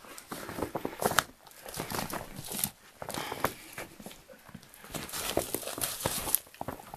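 Footsteps crunching in snow, with snow-covered brush crackling and scraping against clothing as people push through it; irregular crunches and crackles.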